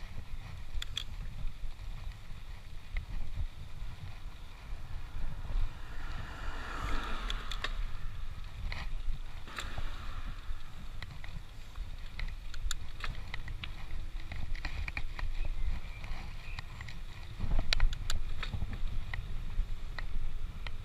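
Riding sounds from a bicycle in motion: a steady low rumble of wind on the microphone, with scattered sharp rattling clicks. A broad hiss swells up about six seconds in and fades a couple of seconds later.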